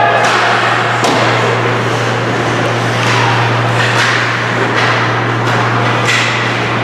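Ice hockey play: about half a dozen sharp knocks of sticks, puck and boards, with skates scraping on the ice in between, over a steady low hum.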